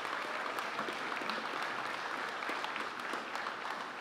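Audience applause: a steady patter of many hands clapping.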